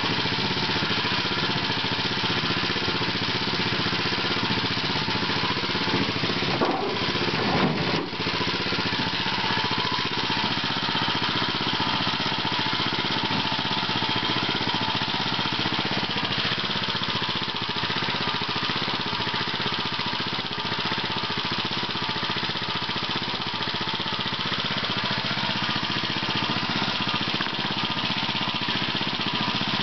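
Small gasoline engine fitted to a 1921 Cataract washing machine, running steadily and driving the washer's tub through a load of washing. A few knocks around seven to eight seconds in.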